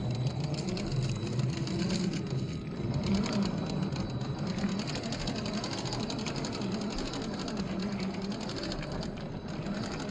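Axial SCX10 III RC rock crawler's 540-size 35-turn brushed motor and gear drivetrain whining steadily as it crawls over rocks, the pitch wavering slightly with the throttle.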